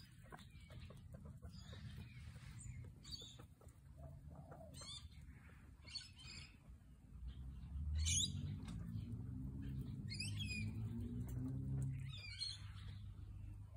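Songbirds chirping in short, quick warbling phrases, a burst every second or two, over a low hum that grows louder about eight seconds in.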